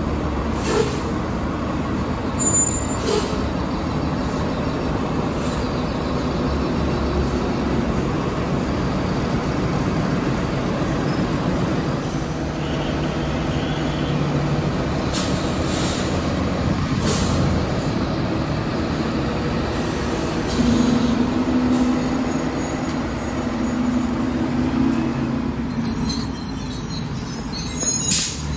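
MBTA transit buses running in a busway, with an engine drone and several short air-brake hisses. Pitched engine tones rise in the second half, and a high squeal comes near the end.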